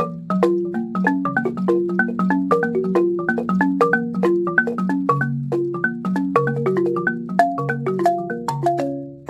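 Siamou balafon played with mallets: a quick, steady run of struck wooden notes, several a second, with lower notes ringing under faster higher ones.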